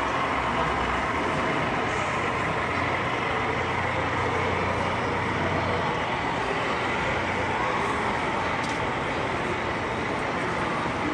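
Steady hubbub of a crowd, indistinct voices blending into one continuous murmur.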